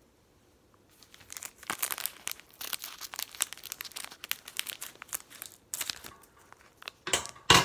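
Crinkling of a basketball card pack's shiny foil wrapper as it is handled and cut open with scissors: a dense run of irregular crackles starting about a second in, with a louder, sharper crackle near the end.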